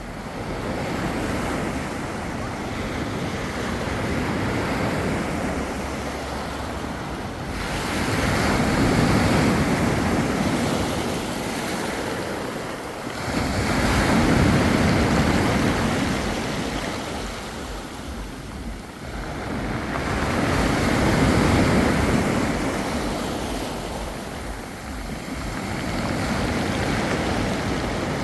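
Sea waves breaking on a beach, the wash swelling and falling back in slow surges roughly every six to seven seconds.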